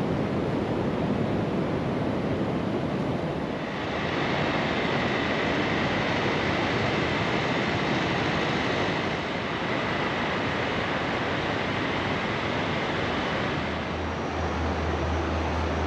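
Surf washing on a beach, with wind, making a steady rushing noise. A faint steady high tone joins about four seconds in, and a low hum starts near the end.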